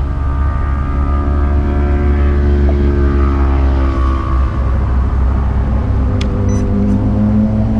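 Low, steady engine drone whose pitch sags slowly and then climbs again near the end, with a couple of sharp clicks about six seconds in.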